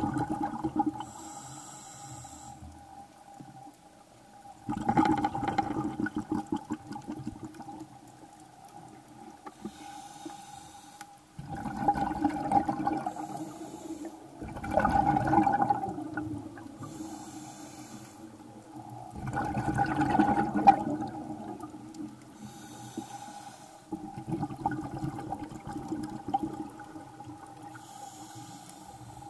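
Scuba diver's regulator breathing underwater: a rush of exhaled bubbles about every four to five seconds, with a short high hiss of the inhale between them, over a steady faint hum.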